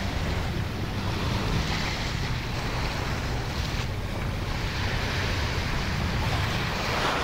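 Small waves washing onto a sandy beach, the surf hiss swelling several times, with wind rumbling on the microphone.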